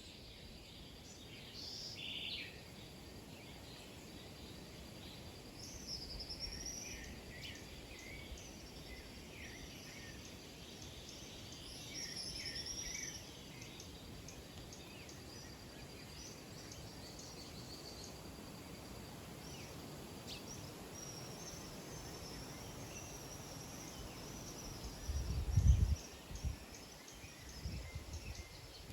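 Small birds chirping and calling in short bursts and quick rising-and-falling notes over a steady thin high tone that stops about two-thirds of the way through. Near the end comes a single loud low thump.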